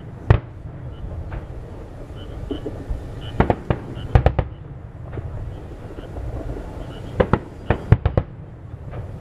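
Aerial firework shells bursting in a display: sharp bangs in clusters, one just after the start, several between about three and a half and four and a half seconds, and several more around seven to eight seconds, over a low rumble.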